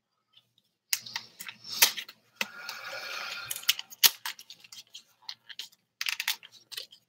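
Handling noise close to the microphone: scattered clicks and taps with a rustle in the middle and one sharp click about four seconds in, after a second of near silence.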